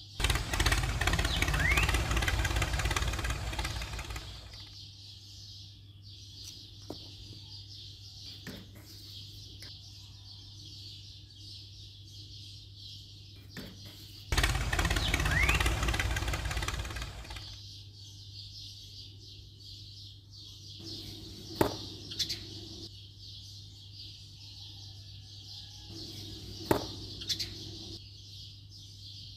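A toy tractor's engine sound effect plays twice, each time for about three to four seconds, the second burst matching the first. Between the bursts there is a steady low hum, and near the end a few sharp clicks as small pieces are set onto the plastic trailer.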